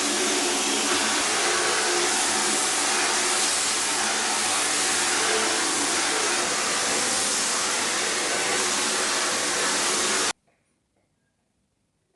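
Bosch UniversalVac 15 wet/dry vacuum cleaner with a 1000-watt motor, running steadily with a loud rushing of air. It cuts off suddenly about ten seconds in.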